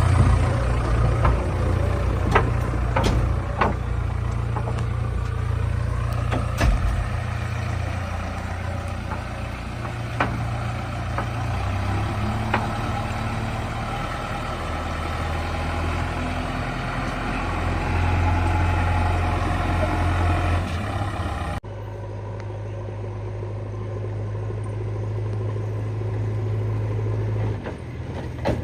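Heavy diesel engine of a JCB 3DX backhoe loader running steadily, with several sharp knocks in the first half. The sound changes abruptly about three-quarters through to a steadier engine hum.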